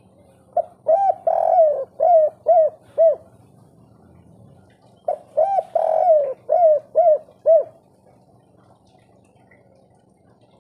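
Spotted dove cooing: two matching song phrases about four and a half seconds apart, each a short note, a longer drawn-out coo, then three short arched coos, the three-note 'kuk 3' ending.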